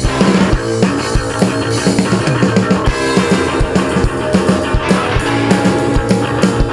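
Live rock band playing an instrumental passage: distorted electric guitar, bass guitar and a drum kit with steady, regular drum hits.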